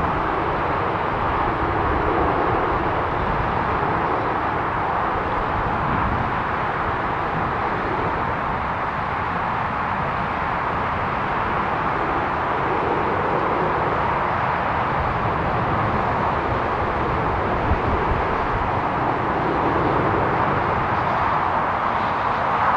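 Airbus A380-861's four Engine Alliance GP7270 turbofans at climb thrust just after takeoff: a steady, even jet roar with no distinct whine.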